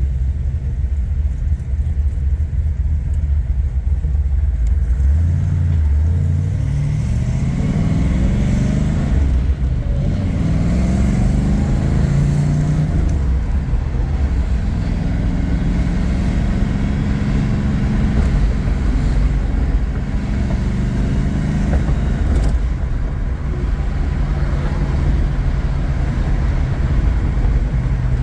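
1970 Plymouth Cuda's 440 Six Pack V8 running under way. The engine note climbs as the car accelerates, dropping once in between as if through a gear change, about a quarter of the way in, then settles to a steady cruise.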